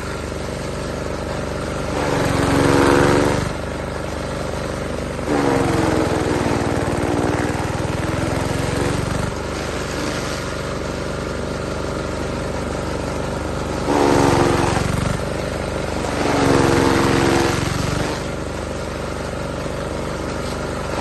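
Hay cutter running steadily, with five louder stretches of about one to four seconds each that rise above the steady hum.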